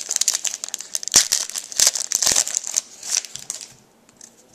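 Foil wrapper of an Upper Deck hockey card pack being torn open and crinkled in the hands: a rapid run of sharp crackles that dies away about three and a half seconds in, followed by a few faint ticks as the cards are handled.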